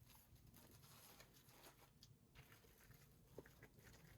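Near silence: faint room tone with a few soft, small ticks.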